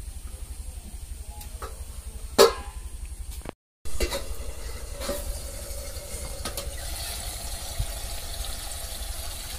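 Chicken curry sizzling quietly in a metal kadai over a wood fire, over a steady low hum. There is one loud metal clank about two and a half seconds in and a brief break in the sound just after, then small clicks.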